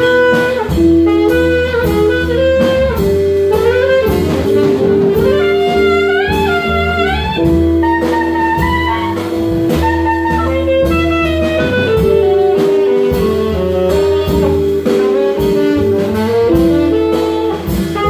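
Live jazz combo: a saxophone solos in quick, winding runs over long held backing notes, walking upright bass, archtop guitar and a drum set with steady cymbal strokes.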